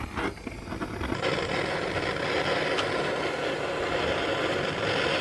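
A heating tool switched on about a second in, then running with a steady, even hiss, aimed at the phone's screws to loosen them, with a few faint clicks before it starts.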